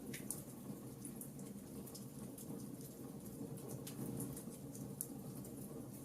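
Wood fire burning in a fireplace: a steady low rumble of the flames with frequent small, irregular crackles and pops.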